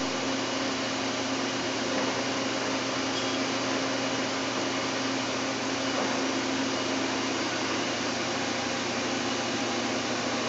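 Daewoo DMV 650 CNC vertical machining center running: a steady whirring hiss with a constant hum underneath.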